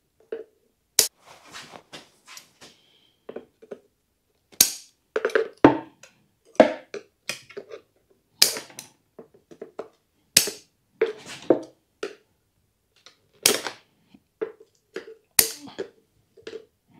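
Wire cutters snipping the tie-in wires at the base of a bonsai pot: a sharp snap every second or two, with light clinks and knocks between.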